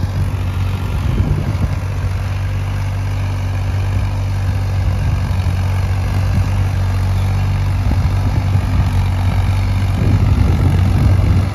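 Ford 3600 tractor's three-cylinder diesel engine running loudly and steadily under load, a little louder near the end.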